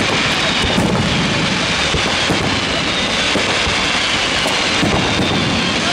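Fireworks going off: a continuous dense crackling hiss with a few sharp bangs among it.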